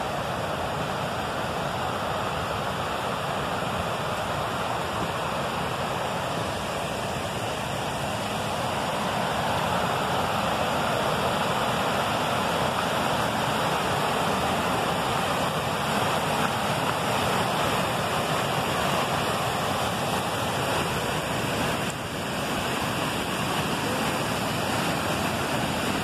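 Waterfall rushing: a steady, dense hiss of falling water, growing a little louder about ten seconds in.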